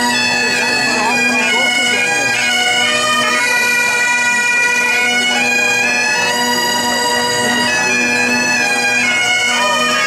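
Several Great Highland bagpipes playing a tune together, the melody moving from note to note over a steady drone.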